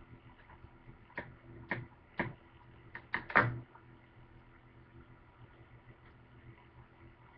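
A handful of short clicks and knocks from hands handling bacon and smokies at a plastic cutting board, bunched into the first three and a half seconds with the loudest near the end of the run. A steady low hum from an appliance runs underneath.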